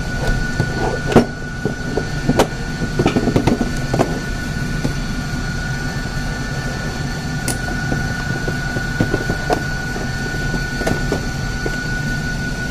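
Scattered plastic clicks and knocks as a 12 V sealed lead-acid battery is worked out of an APC UPS's plastic battery compartment by hand, a cluster of them early, fewer later. Under them runs a steady hum with a constant high tone.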